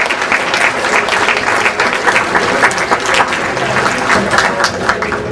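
Banquet audience applauding: a dense run of many hands clapping, thinning into more separate claps near the end.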